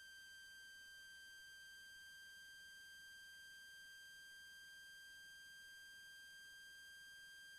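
Near silence, with a faint steady high-pitched electrical whine: one unchanging tone with fainter overtones above it.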